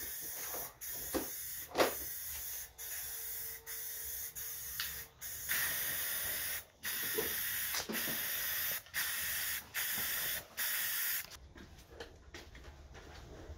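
Aerosol spray paint can hissing in a long run of short bursts, each about a second long, as black paint is sprayed onto the steel press frame; a light knock sounds about two seconds in, and the spraying stops near the end.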